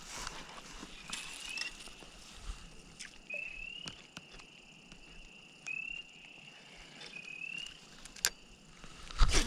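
Spring peepers calling: short, high, rising whistled peeps repeated every second or two. Scattered clicks and a louder knock near the end come from handling the spinning rod and reel.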